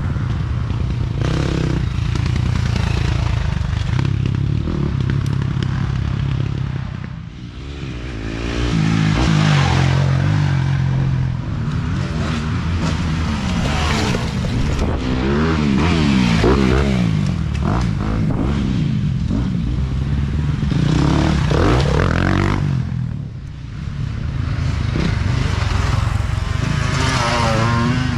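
Dirt bike engines revving as several riders pass close by one after another, each engine note climbing and dropping as it goes past. The sound eases briefly about seven seconds in and again near twenty-three seconds, between passes.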